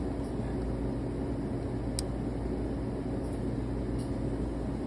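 Steady machine hum with a constant low drone, and one light click about two seconds in.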